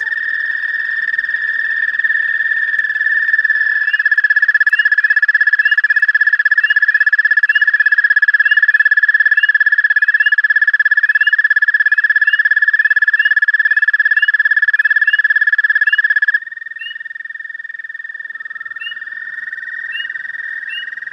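Loud chorus of frogs calling from a small mud hole. One long, steady trill close by dominates and cuts off about sixteen seconds in. Many short rising peeps repeat behind it, and a quieter trill carries on.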